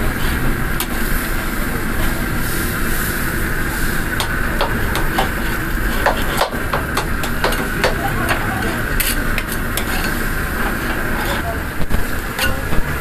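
Burger patties sizzling on a grill grate, with scattered clicks and scrapes of a spatula against the grate as they are turned, over a steady low hum.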